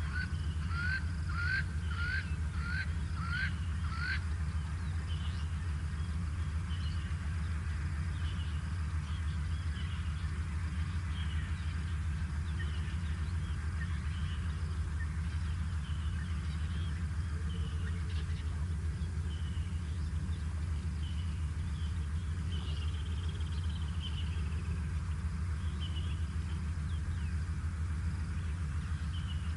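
Red-billed hornbill calling: a series of about seven evenly spaced, sharply rising notes, about two a second, that stops after about four seconds. Other birds give short high chirps over a steady low hum.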